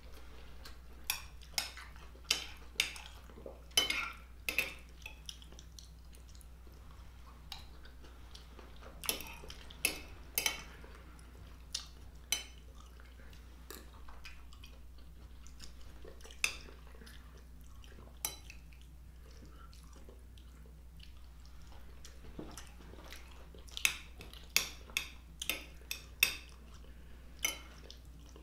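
A metal fork clinking and scraping on a glass plate in scattered sharp clicks, in bunches every few seconds, with close-miked chewing of a sausage and vegetable stir fry between them. A faint steady low hum runs underneath.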